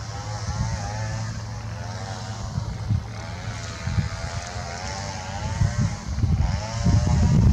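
Twin-engine jet airliner on final approach, its engines running with a whining rush whose pitch bands waver as it comes nearer. Gusty low rumble of wind on the microphone, getting stronger near the end.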